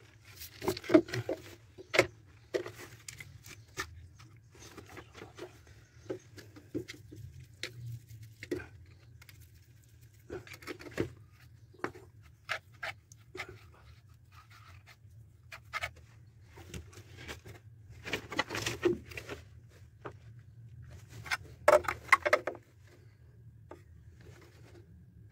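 PVC pipe fittings being handled: scattered plastic knocks, clicks and scrapes with rustling, over a steady low hum.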